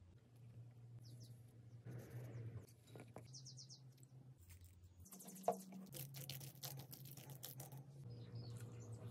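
Quiet kitchen handling sounds as ingredients are tipped into a glass bowl of grated zucchini, over a steady low hum. A few bird chirps come in from the background, and there is one sharp click about five and a half seconds in.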